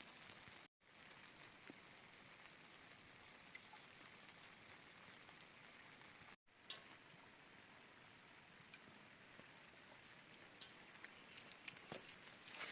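Faint steady rain with scattered drips ticking. The sound cuts out to silence briefly twice.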